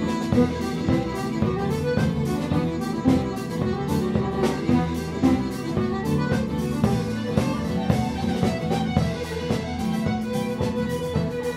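Celtic folk band playing a traditional Irish tune: a button accordion carries the melody over a strummed acoustic guitar with a steady beat.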